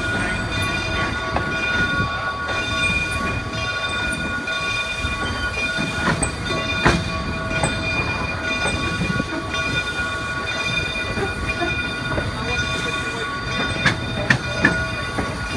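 Train running noise heard from aboard a moving car: a steady rumble under a constant whine, with a few sharp clicks of wheels over rail joints, one about halfway through and a quick cluster near the end.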